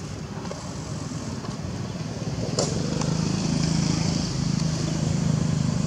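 A motor engine running steadily with a low hum, growing louder about halfway through, with one sharp click just before.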